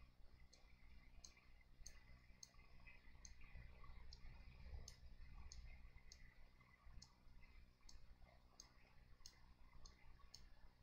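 Near silence: room tone with a low hum and faint, sharp clicks about every two-thirds of a second.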